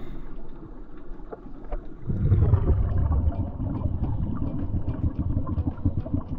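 Underwater noise picked up by a diving camera: a low rumbling wash that gets much louder about two seconds in and then carries on.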